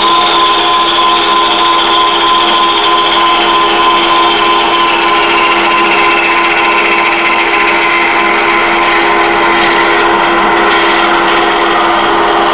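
Oneway wood lathe running with a steady motor hum while a detail gouge cuts the spinning wood, giving a continuous hiss of shavings. The cutting hiss slowly drops in pitch as the cut goes on.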